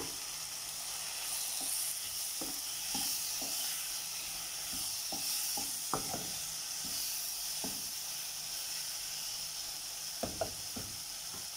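Chopped onion, capsicum and tomato sizzling in hot oil in a pan, with a spatula stirring and scraping through them. A steady hiss under scattered soft knocks of the spatula on the pan, two close together near the end.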